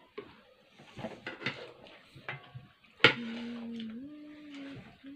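Spoons clinking and scraping against plates and bowls during a meal. About three seconds in there is one sharp loud clink, followed by a held steady tone that steps up in pitch once and lasts about a second and a half.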